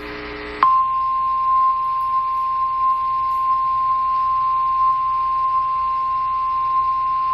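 NOAA Weather Radio warning alarm tone: one steady, piercing tone near 1 kHz that cuts in suddenly under a second in, after a moment of radio hiss and hum. It is the alert signal of an Emergency Alert System activation, here for a severe thunderstorm watch.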